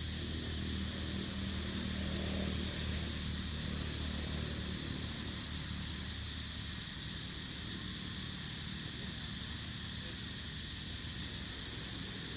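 Steady low hum of an engine running, over a steady high-pitched background drone; the low hum's even tone breaks up a little past halfway.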